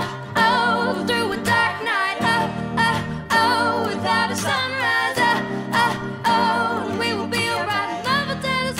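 Acoustic pop song: a woman singing long, wavering vocal lines over strummed acoustic guitar.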